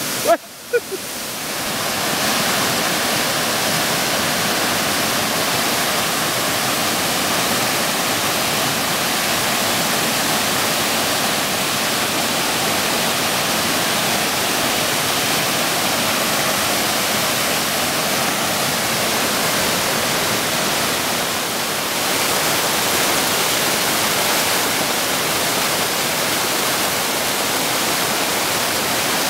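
Muddy flash-flood water pouring over stepped sandstone ledges: the steady, even rush of a full waterfall. A short break with a couple of knocks just after the start.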